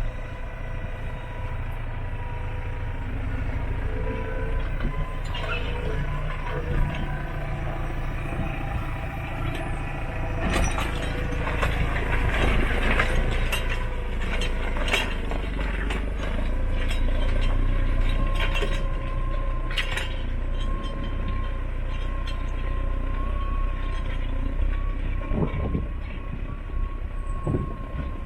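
Massey Ferguson 5470 tractor's diesel engine running steadily under load while ploughing, with a steady whine over a low drone. Irregular clanks and rattles from the plough and linkage come through, thickest in the middle.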